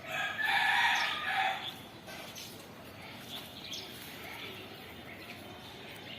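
A rooster crowing once, a pitched call lasting about a second and a half at the start, then faint bird chirps in the background.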